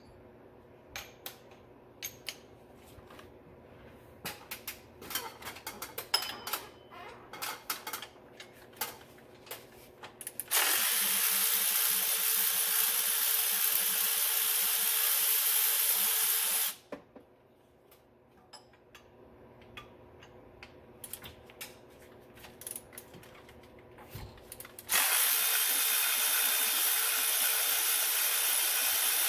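Socket and extension clicking and tapping against the bolts, then a power tool running steadily twice, about six seconds each time, spinning out the long bolts of the alternator and power steering pump bracket.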